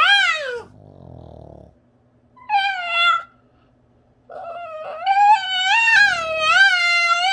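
Boston terrier howling in a 'talking' way: a short falling howl, a brief low grumble about a second in, another short howl near the three-second mark, then a long wavering howl from about four seconds in.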